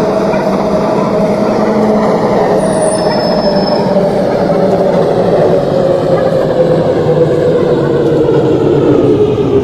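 Hong Kong MTR M-Train electric multiple unit running, heard from inside the car: a steady rumble of wheels on the track with the traction motors' whine slowly falling in pitch as the train slows.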